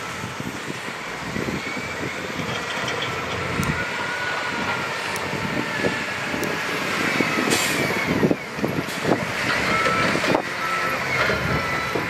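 Heavy diesel earthmoving machinery running under load, with a reversing alarm beeping in a regular on-off pattern near the end. A short hiss breaks in about seven and a half seconds in.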